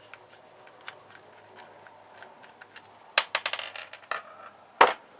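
Small metal parts of a disassembled electrical plug clicking and clattering as they are handled, with a quick rattling run about three seconds in and one sharp clack near the end.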